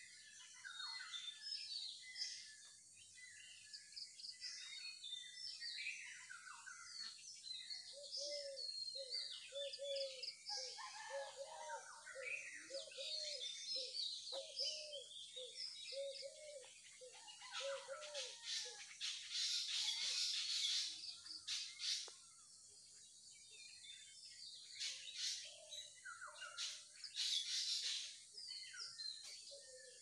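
Many small birds chirping and calling together. From about a quarter of the way in, a lower call repeats steadily, about three times every two seconds, for roughly ten seconds. The second half has louder, noisier bursts.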